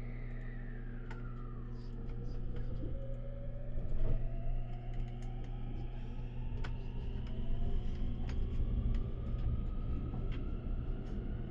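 Electric limited express train pulling away: the traction motors' whine rises slowly in pitch as the train gathers speed, over a steady low hum, with scattered sharp clicks.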